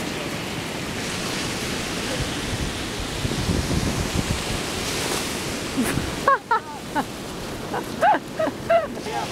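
Small waves washing onto a sandy shore, with wind rumbling on the microphone. About six seconds in the noise drops away suddenly and a few short, high voice exclamations follow.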